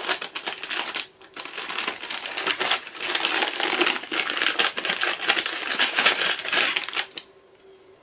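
Wrapping of a small gift package crinkling and rustling as it is unwrapped by hand, with a short break about a second in; it stops about seven seconds in.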